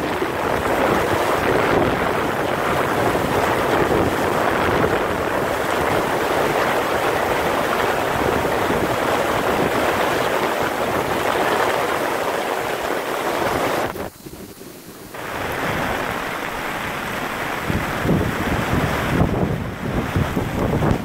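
Storm wind and heavy rain: a loud, dense rush with wind buffeting the microphone, dropping away sharply for about a second roughly two-thirds of the way through before coming back.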